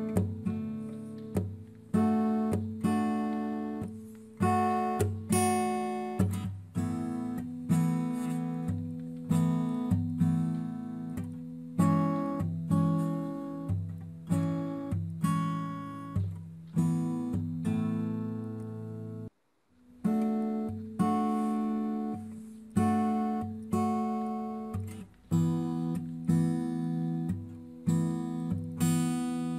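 Background music on acoustic guitar: plucked notes and strummed chords at a steady pace, with a brief break about two-thirds of the way through.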